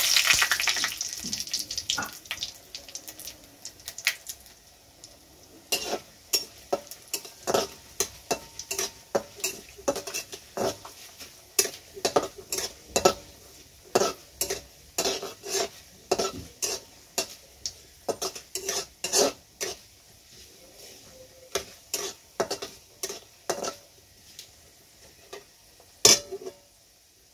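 Dried red chillies sizzling as they hit hot oil and panch phoron in a metal kadai: a loud hiss at the start that dies away over about two seconds. Then a metal spatula scrapes and clinks against the kadai in repeated stirring strokes, about one or two a second, with one louder clank near the end.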